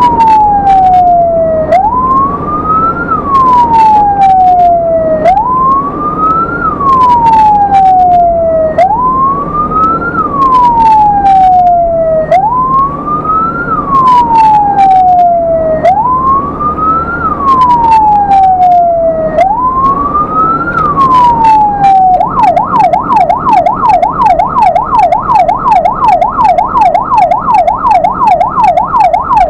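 Ambulance electronic siren on wail, each cycle rising quickly and falling slowly about every three and a half seconds, switching about three-quarters of the way through to a fast yelp. Sharp clicks and a low engine rumble sit underneath.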